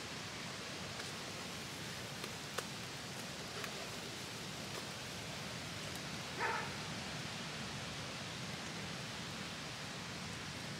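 Autumn storm wind rushing steadily through the woods, with a brief louder call about six and a half seconds in.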